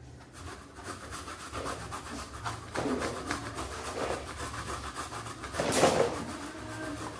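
Coconut flesh being scraped by hand on a metal coconut grater: quick, repeated rasping strokes, with one louder stretch about six seconds in.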